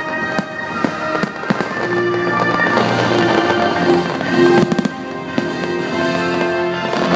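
Aerial fireworks shells bursting in irregular sharp bangs, with a quick cluster of bangs about four and a half seconds in, over the show's accompanying music with long held notes.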